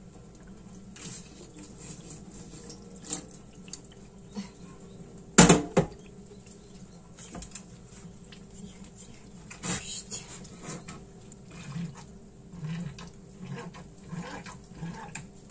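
Whey trickling and dripping from a plastic cheese mould of fresh brynza into a steel tray, with small handling clicks as the mould is turned and pressed. One loud sharp knock about five and a half seconds in, and a smaller one near ten seconds.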